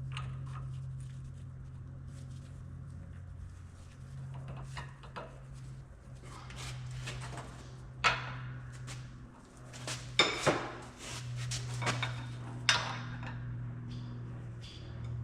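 Steel parts of a Unimog 416 CV joint being handled and set down on a workbench: scattered metallic clinks and clanks, the sharpest a little past halfway and near the end, over a steady low hum.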